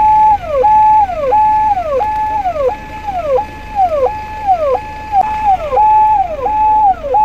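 Ambulance siren wailing in a repeating cycle: a high tone held briefly, then sliding down, about three cycles every two seconds.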